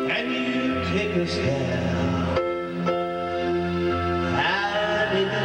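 Music played on an electronic keyboard: held chords that change about halfway through and again near the end, with a voice faintly singing along.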